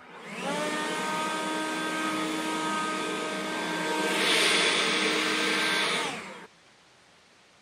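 Handheld electric leaf blower spinning up, running at a steady whine with rushing air, the air rush growing louder about four seconds in as it blows across the watercraft's hull, then switched off and winding down.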